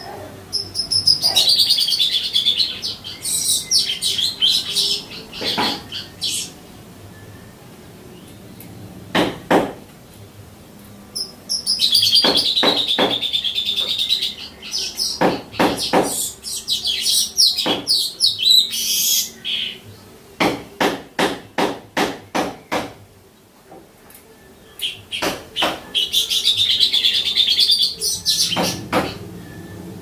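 Caged streaked weaver singing: three long, high, chattering song phrases, with runs of sharp clicks between them, about two a second in the middle stretch.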